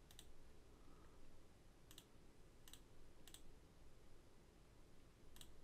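Five faint, sharp clicks at a computer, spaced unevenly a second or so apart, over near-silent room tone.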